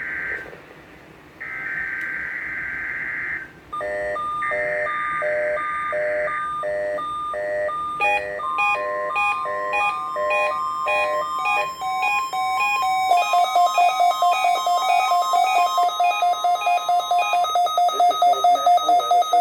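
NOAA Weather Radio SAME digital header: three harsh, warbling data bursts, each about two seconds long, marking the start of the required weekly test. From about four seconds in, a weather radio receiver's electronic alarm beeps rapidly in repeating multi-tone patterns that change twice. From about eight seconds in, a steady alert tone runs underneath for some nine seconds.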